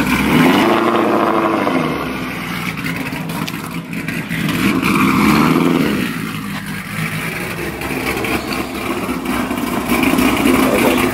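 Ford Mustang GT's 5.0 V8 exhaust as the car pulls away, revving up and falling back twice over its running note. The engine is doing badly and sounds like it is going to stall, which the owner puts down to a tune that does not suit its newly fitted GT350 intake manifold.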